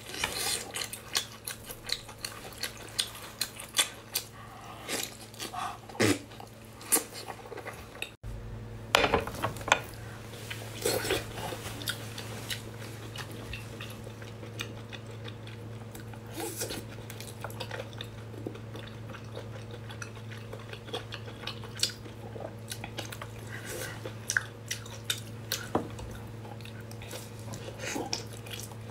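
Close-up eating sounds: wet chewing, smacking and slurping of sauce-covered octopus and braised pork, with many short sharp clicks. A steady low hum comes in after a break about eight seconds in.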